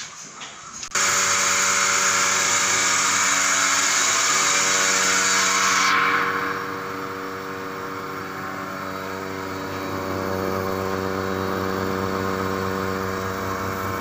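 Milking machine's vacuum pump unit switching on about a second in and running steadily. It starts with a loud rushing hiss over a humming drone. The hiss drops off abruptly after about five seconds, leaving the steady drone of the running pump.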